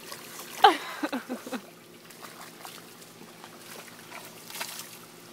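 Pig grunting: a short falling squeal-grunt about a second in, followed by four quick low grunts, then only faint wet trickling sounds.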